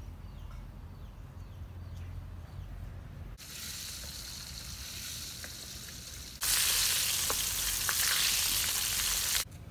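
Whole fish deep-frying in a wok of hot oil, a steady sizzle that starts about three seconds in and turns much louder about halfway through. A few light clicks of a metal spatula against the fish and wok come in the loud part, and the sizzle cuts off abruptly near the end.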